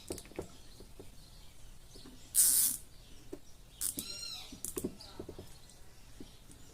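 Nylon cable tie pulled tight through its lock, a short zipping rasp about two and a half seconds in, among small clicks of handling. A cat meows once about four seconds in.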